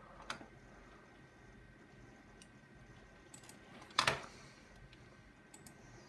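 Computer mouse and keyboard clicks: a sharp click just after the start, a few light ticks, and a louder, longer clack about four seconds in.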